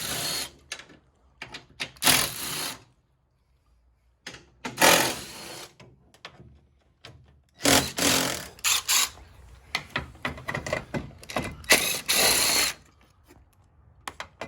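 Several short bursts from a power tool, each about half a second to a second long, with clicks and knocks of tools on metal between them.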